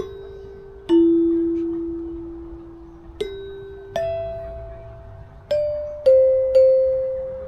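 Outdoor metallophone with coloured bars over tube resonators, struck one note at a time with a mallet: a slow melody of about seven ringing notes, each sustaining and fading before the next is struck.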